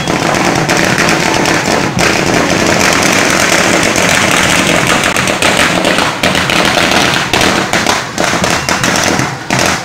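A long string of firecrackers going off in very rapid succession, a dense crackling that thins into separate bangs in the last two seconds.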